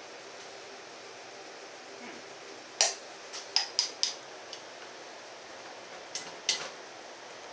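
Sharp metallic clinks and taps of tools and valve parts against a small-block Chevy cylinder head while its valves are being stripped out. There is a cluster of about five clinks a few seconds in, then two more about a second and a half later.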